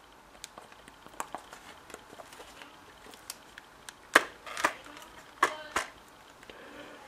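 Small plastic clicks from the buttons of a RadioShack 12-262 weather alert radio being pressed, with a few sharper clacks about four to six seconds in as the radio is handled.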